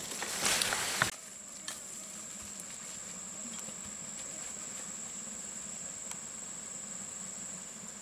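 Footsteps crunching through dry leaf litter, cutting off abruptly about a second in. Then a steady, high-pitched insect drone holds on evenly.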